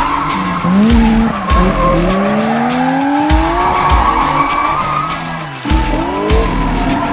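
Drift car engine revving hard, its pitch climbing over a second or two and then dropping sharply, twice, with tyre squeal and screech from the slide. Music with a heavy low beat plays along with it.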